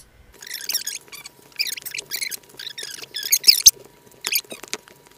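Soft keto tortilla dough, just wetted with egg whites, squelching in irregular bursts as it is squeezed and kneaded by hand in a stainless steel bowl, with one sharp click partway through.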